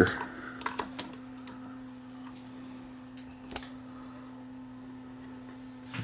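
Steady low electrical mains hum with a few light clicks; the sharpest click comes about three and a half seconds in.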